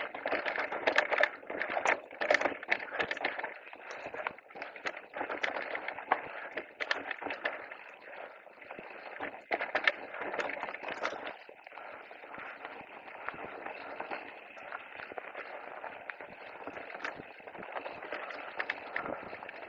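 Electric mountain bike riding down a rocky singletrack: tyres crunching over stones, with a constant clatter of small rattles and knocks from the bike. The sharpest knocks come in the first few seconds.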